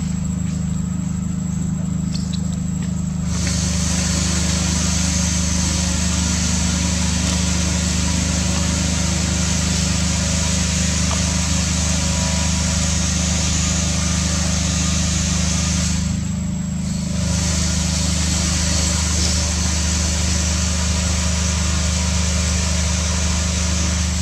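A steady low hum, as of a motor running, under an even hiss. The hiss comes in a few seconds in and drops out for about a second past the middle.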